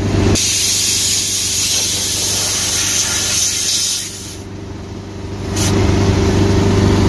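Loud pressurized spraying hiss while a tractor tire is filled with ballast fluid. The hiss cuts off about four seconds in. A small engine runs steadily underneath and grows louder near the end.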